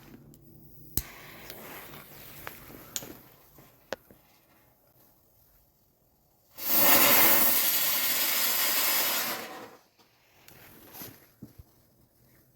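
Small Comet spinner firework going off: after a click and a quieter fizz, it bursts into a loud, even hiss about six and a half seconds in, burns for about three seconds and cuts off.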